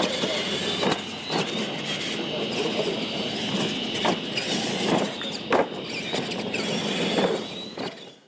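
Radio-controlled monster truck driving over dirt: a steady, wavering high whine from its electric motor and gears, with scattered sharp knocks and clatter from the chassis and tyres.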